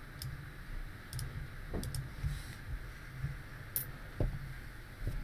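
Several sharp clicks of a computer mouse: one near the start, one about a second in, a quick pair just before two seconds, and a louder one near four seconds, over a faint low background hum.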